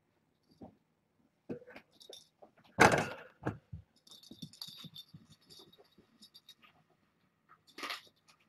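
A person sitting down on the floor: a heavy thump with rustling about three seconds in, followed by a light metallic jingling rattle and another short shuffle near the end.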